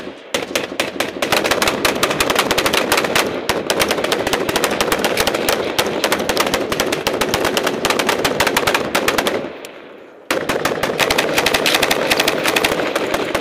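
Belt-fed machine gun firing in two long sustained bursts of rapid shots, broken by a pause of under a second about nine and a half seconds in.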